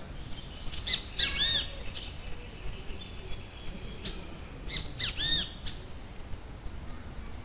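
Bird calls: a cluster of short arched chirps about a second in, and another about five seconds in, with a few sharp clicks between them.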